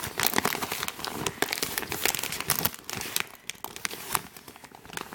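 Plastic of a Scrubba wash bag crinkling as it is handled and turned over, in dense irregular crackles that thin out in the second half.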